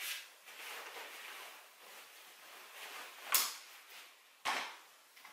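Folded Baby Trend Tri-fold Mini stroller's frame and wheels clacking as it is handled and set down on the floor: a sharp clack about three seconds in and a dull knock a second later, with faint rustling between.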